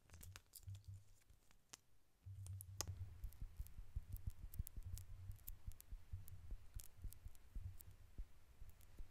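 Lip gloss wand being dabbed and drawn across lips, making faint sticky clicks and taps. The clicks are sparse at first and come thick and fast from about two seconds in, over a low rumble.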